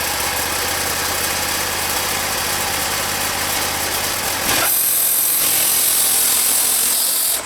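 Wood-Mizer band sawmill's engine running steadily at idle. About four and a half seconds in, the sound changes suddenly to a loud high hiss and the engine hum drops away.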